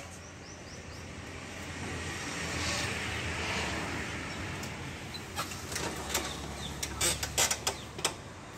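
Sharp knocks and clicks, several close together in the second half, from someone climbing onto a tractor's seat and handling it, over a steady low hum.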